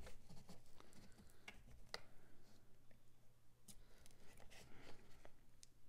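Faint scattered clicks and taps of hands handling an X-Acto knife and an eyeshadow palette on a tabletop, over a low steady hum.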